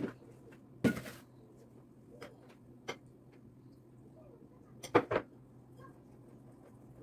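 Kitchen handling sounds while filling khinkali: a short plastic clatter from the container lid about a second in, a few light clicks, then two sharp taps of a spoon against the bowl about five seconds in. A low steady hum runs underneath.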